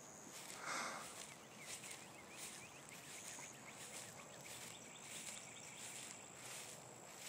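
Footsteps swishing through lawn grass at a steady walking pace, roughly three steps every two seconds, over a faint steady high whine. A brief louder rustle comes about a second in.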